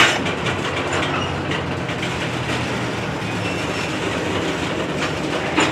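Loaded covered hopper cars of a freight train rolling slowly past, steel wheels running on the rail with a steady rumble. There is a sharp click of wheels over a rail joint at the start and another near the end.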